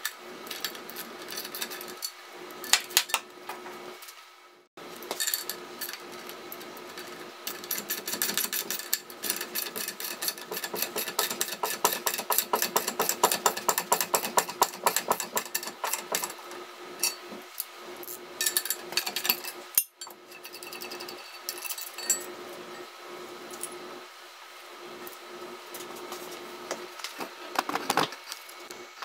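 Socket ratchet wrench clicking in rapid runs as a bolt is turned to press a new bushing into an aluminium gimbal ring. The longest run of clicking lasts more than ten seconds, with shorter runs before and after it.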